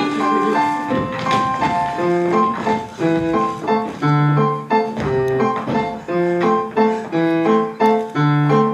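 Piano music playing an evenly paced tune of separate notes and chords, with a steady bouncing rhythm.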